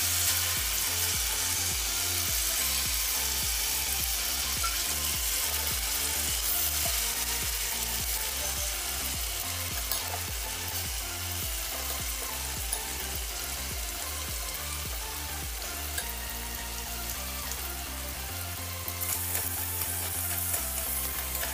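Potato fries deep-frying in hot oil in a pan, a steady sizzle of bubbling oil. Near the end a slotted metal spoon stirs through them, adding a few light clinks.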